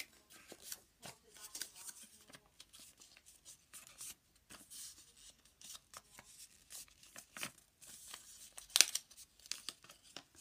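A sheet of origami paper being folded by hand, its corners creased in to the centre: short, irregular rustles and crisp creasing sounds, with a louder crease about nine seconds in.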